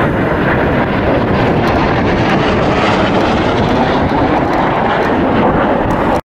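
Jet noise from BAE Systems Hawk display jets with Adour turbofans flying past, a steady loud rush that cuts off suddenly near the end.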